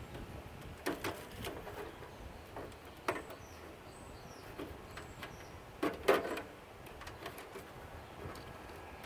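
Scattered clicks and knocks of tools and metal and plastic parts being handled while a CRT security monitor is taken apart, the loudest pair about six seconds in. Faint bird chirps in the background.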